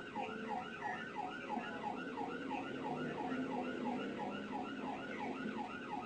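Police siren on yelp, its pitch sweeping up and down about four times a second, over steady engine and road noise from the moving cruiser.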